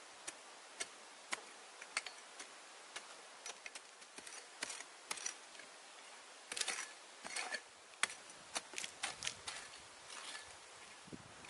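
Large knife blade chopping and scraping into dry, hard soil: irregular sharp ticks, with a run of longer scraping strokes about seven seconds in.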